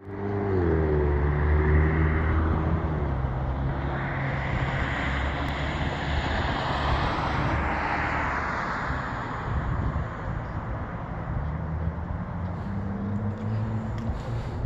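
Passing vehicle engine noise. An engine tone falls in pitch over the first few seconds, a rushing noise swells and fades in the middle, and a steady engine hum comes back near the end.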